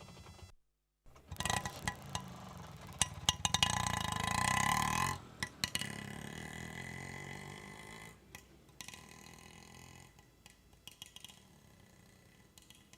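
Auto rickshaw engine running with a low rumble and much rattling and clicking. It grows louder, drops suddenly after about five seconds, and settles into a quieter steady run. A brief cut to silence comes just before it.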